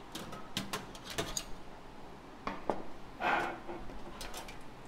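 Light metallic clicks and clinks from handling a Hans portable butane stove's stainless-steel body and its small brass LPG adapter, with one brief louder scrape a little past three seconds in.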